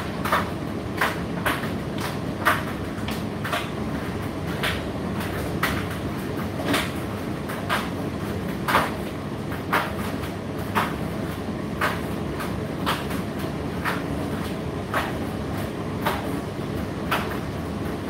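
Indesit IDC8T3 condenser tumble dryer running, its drum turning with a steady rumble, with a sharp knock about once a second as the load tumbles inside the drum.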